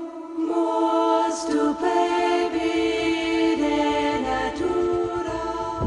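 Soundtrack music: a choir singing slow, sustained chords, with the notes held and then changing every second or so.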